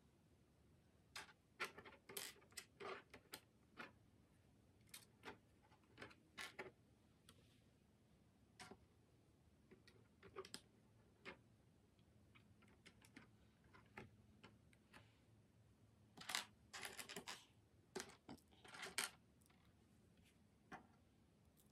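Plastic LEGO bricks clicking and clattering as pieces are picked from a loose pile and pressed together onto a brick plate: scattered sharp clicks, busier about two seconds in and again later on.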